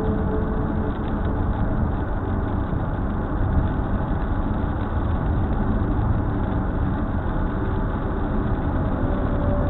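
Steady road noise of a car driving on a highway in the rain, tyres on wet pavement and engine heard from inside the cabin.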